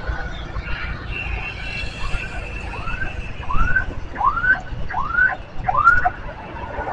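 Road traffic rumble, with a series of about six rising whoops roughly two-thirds of a second apart starting about two seconds in, and a thin steady high tone before them.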